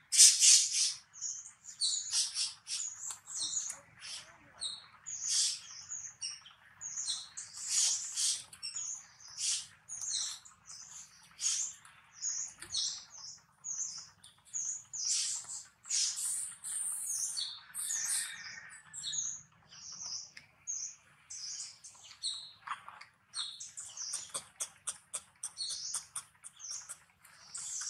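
Infant long-tailed macaque squeaking: short high-pitched squeaks and chirps, repeated over and over with brief pauses.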